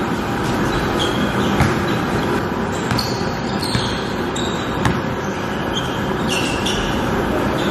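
Basketball bouncing on a hardwood-style gym floor, with a few sharp impacts and short, high sneaker squeaks over a steady gym din.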